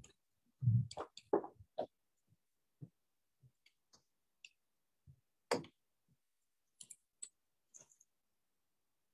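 A few scattered short clicks and knocks, a small cluster in the first two seconds and single ones after that, with dead silence in between.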